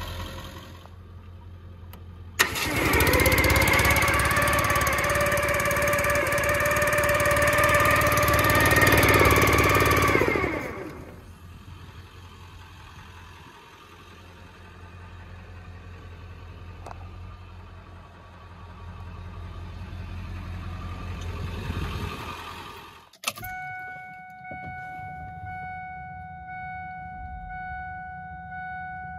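Ford F450 brush fire truck's engine running. For about eight seconds, starting a couple of seconds in, a loud whine with a steady pitch sits over it. Near the end a steady high tone sounds over the idle.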